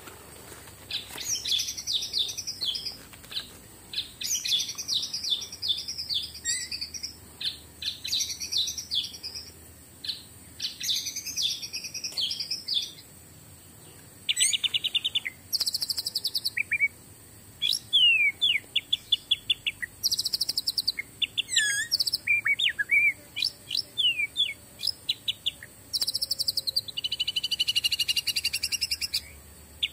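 Forest birds singing: bursts of high chirps, then rapid trills and runs of short downward-sweeping whistles that grow denser and louder in the second half.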